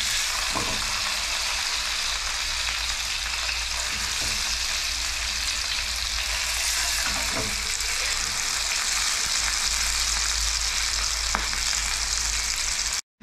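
Hot oil sizzling steadily in a frying pan as split halves of rat meat fry and are turned with wooden chopsticks, with a few small ticks from the chopsticks and spitting oil.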